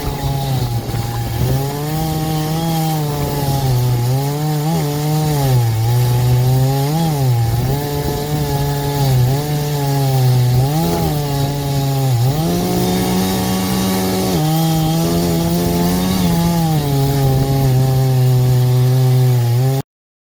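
Chainsaw in an Alaskan chainsaw mill running at full throttle while ripping lengthwise through a hickory log. The engine pitch sags briefly and recovers several times as it bogs under load in the cut. The sound cuts off suddenly near the end.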